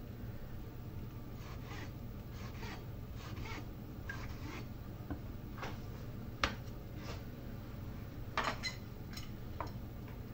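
Kitchen knife slicing a tomato half on a cutting board: a series of short, faint cutting strokes as the blade goes through the skin and meets the board. A sharper click comes about six and a half seconds in, and a few louder knocks follow near the end.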